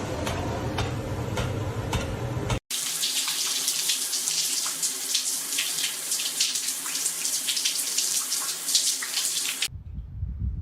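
A low, dense rumbling sound cuts off abruptly about two and a half seconds in. Steady running water follows, hissing with small splashy crackles, until a second abrupt cut about a second before the end leaves a quieter low sound.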